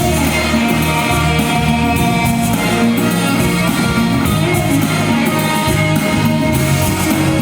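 Pop song playing loudly, with sustained melody notes over a moving bass line and little or no singing.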